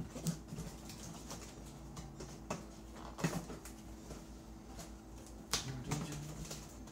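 Cardboard box and packaging being handled and opened: scattered clicks, rustles and a few sharp knocks.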